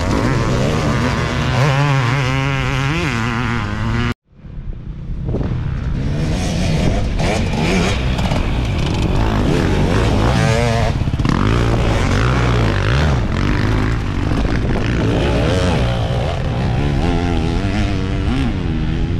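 Enduro dirt bikes revving up and down as they ride the race trail, engine pitch rising and falling with the throttle. The sound cuts out abruptly for a moment about four seconds in, then bike engines continue.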